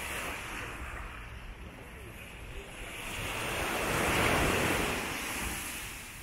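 Sea surf washing up on a sandy beach: a steady hiss of breaking waves, with one wave swelling from about three seconds in, loudest just past the middle, then ebbing away.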